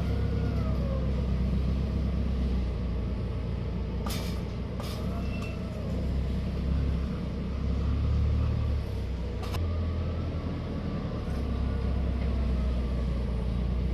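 Forklift engine running with a steady low rumble, its pitch rising and falling three times as it is revved, with a few sharp clicks or knocks.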